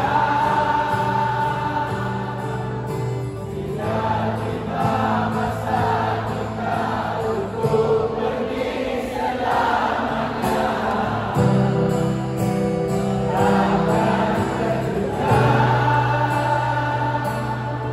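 A large concert crowd singing along together in unison to an acoustic guitar played on stage.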